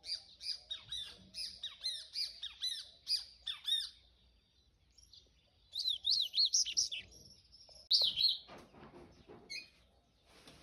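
Papa-capim seedeater (Sporophila) singing its fast, twittering song of quick up-and-down whistled notes, in a long phrase, then after a short pause a second phrase and a brief final burst.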